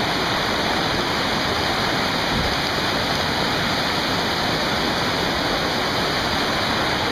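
Whitewater rapids rushing steadily over rocks, a loud, even roar of water close to the microphone.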